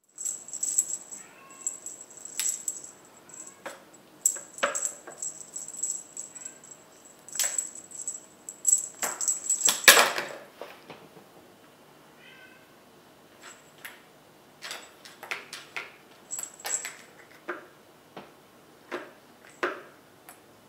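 Kitten playing with a plastic ball-track tower toy and feather wand toys: irregular clicks, knocks and rattles of plastic and balls, with light jingling through the first half and the loudest clatter about halfway. A few faint short meows come between the knocks.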